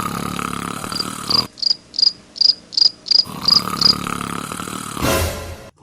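Cricket chirping in an even rhythm, about three high chirps a second for some three seconds, with a steady low drone before and after the chirps. A short burst of noise comes near the end.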